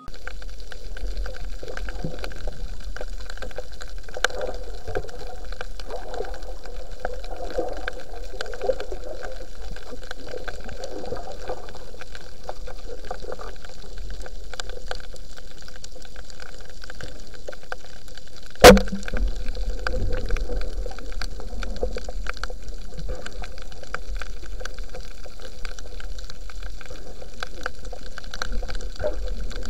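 Underwater sound picked up by a diver's camera: a steady watery hiss and low rumble, dotted with faint crackling ticks. There is one sharp, loud knock about two-thirds of the way through.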